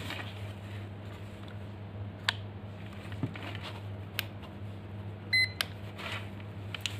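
A short electronic beep from a ZOYI ZT-QB9 digital clamp meter about five seconds in, with a few sharp handling and button clicks scattered through, over a steady low hum.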